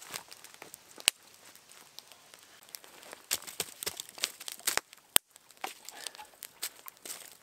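Wood campfire crackling and popping with irregular sharp snaps, the loudest about a second in and just after five seconds, as a log is laid onto the coals.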